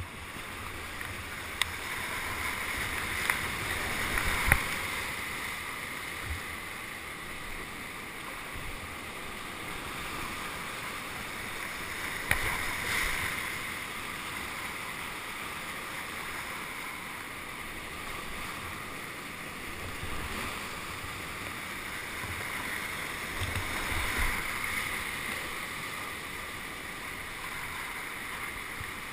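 Rushing, bubbling water that swells louder three times, around a few seconds in, near the middle and toward the end, with a few sharp clicks in the first half.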